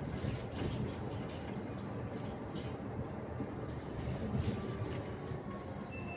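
Steady road and engine rumble heard inside a moving vehicle, with a few light rattles.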